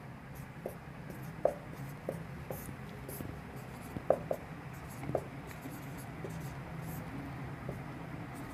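A marker writing on a whiteboard: soft scratchy strokes with scattered light taps of the tip against the board, the loudest a close pair about four seconds in. A low steady hum runs underneath.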